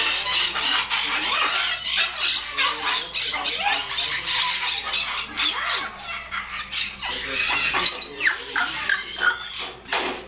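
Parrots squawking and chattering, many shrill calls and short whistles overlapping without a break.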